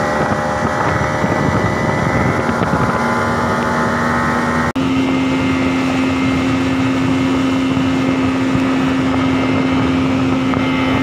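Speedboat engine running steadily under way, with rushing water and wind noise. The sound breaks off for an instant about five seconds in, then the engine carries on with a slightly higher steady hum.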